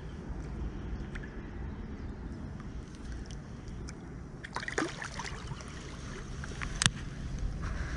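Water splashing and sloshing as a hooked fish is drawn into a landing net, over a steady low wind rumble on the microphone. A single sharp knock comes near the end.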